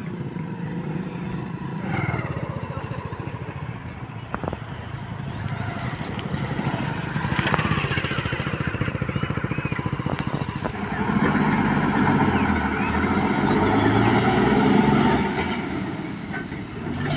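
Road traffic at a crossroads: motor vehicle engines running by. One grows louder and closer from about eleven seconds in, then fades near the end.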